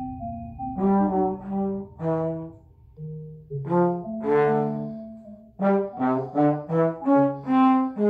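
Trombone improvising a phrase of separate notes, some short and detached and some held, with a cluster of quick notes about six seconds in, over electronic accompaniment.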